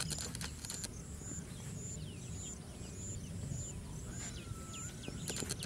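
Outdoor ambience: birds calling in short falling chirps, with a high chirp repeating about twice a second over a steady low rumble. A few faint clicks come near the end.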